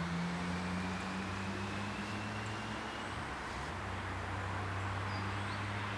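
Steady low engine hum of an idling vehicle, with a faint thin whine slowly rising in pitch over the first half.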